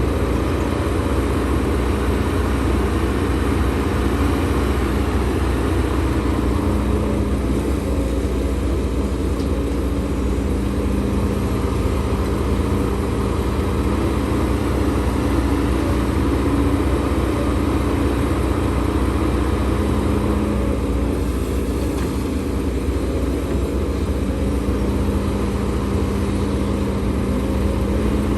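Diesel engine of heavy earthmoving machinery running steadily, a constant low hum with no sharp knocks.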